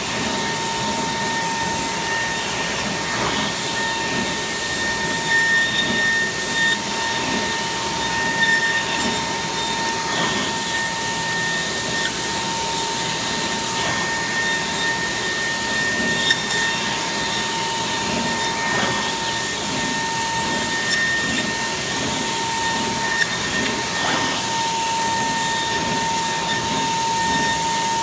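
Kongsberg XP cutting table's high-speed milling spindle, at 55,000 rpm, routing 1-inch Gatorfoam board at 500 inches a minute. It makes a steady high whine over a dense rushing noise, with a few faint ticks.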